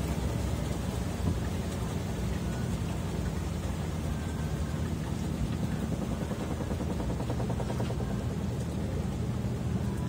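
Consul 13 kg top-load washing machine (CWE13AB) in its spin cycle: the basket spinning fast with a steady motor hum and a constant rushing noise.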